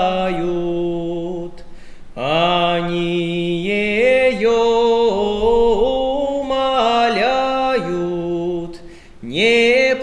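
A solo male voice singing unaccompanied in the style of a Nekrasov Cossack spiritual verse. Long drawn-out notes step up and down in pitch, with a short breath about two seconds in and another near the end.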